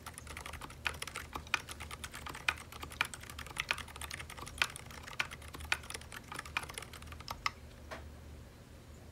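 Typing on a Sidewinder custom mechanical keyboard in HHKB layout fitted with ZealPC Zilent V2 silent tactile switches: a quick, steady run of keystrokes that stops about eight seconds in.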